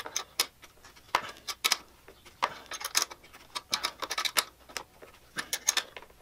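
Irregular metal clicks and taps of a hand tool on the bolts under a drift trike seat as they are tightened, several a second in short clusters.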